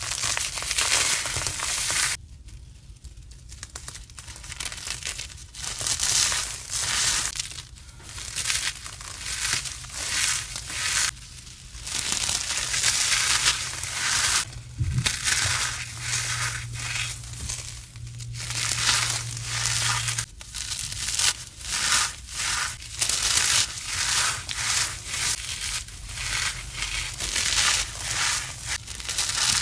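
Dry powdery material being crushed over and over, a run of irregular crunches with short gaps between them.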